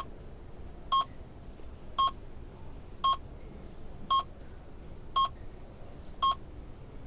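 Patient monitor beeping with the heartbeat: a short, high, steady beep about once a second, seven times in even rhythm, over a faint low hiss.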